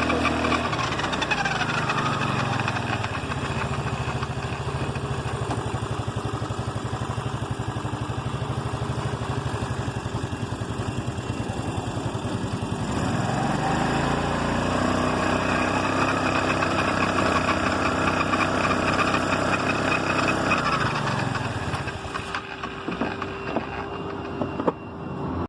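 Scooter engine and transmission running. It falls back to idle in the first couple of seconds, revs up about halfway through and holds there, then drops again near the end. It carries the noise that the mechanic traced to the two gears in the transmission case, not to a bearing or the shaft.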